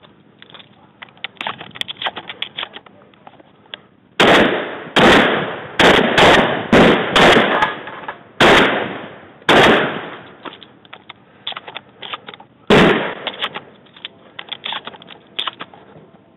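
Shotgun fired about nine times: a quick string of shots from about four to ten seconds in and one more a few seconds later, with quieter clicks and knocks between the shots.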